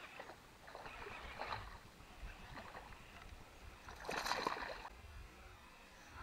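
A hooked fish splashing and thrashing at the water surface, with one loud splash about four seconds in and softer water sounds before it.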